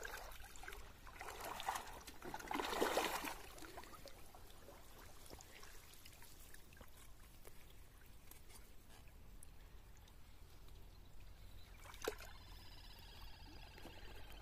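Faint sloshing and trickling of shallow pond water as plastic bottle fish traps are handled in it, louder for the first few seconds. A single knock comes about twelve seconds in.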